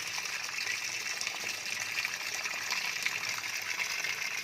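Toshiba top-loading automatic washing machine refilling with water partway through its cycle: a steady gush of water pouring into the drum as the water level rises.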